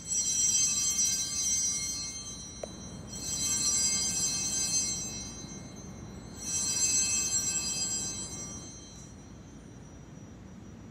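Altar bells rung three times during the elevation of the consecrated host. Each ring is a bright, high-pitched chime that fades over a couple of seconds before the next.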